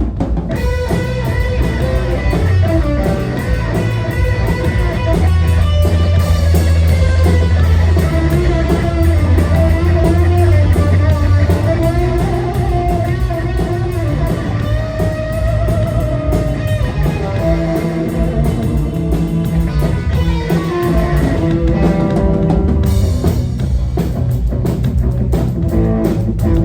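Rock band playing live through an instrumental passage: electric guitar notes over bass guitar and a drum kit, with no singing.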